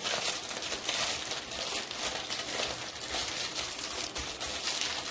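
Plastic packaging crinkling and crackling as it is handled.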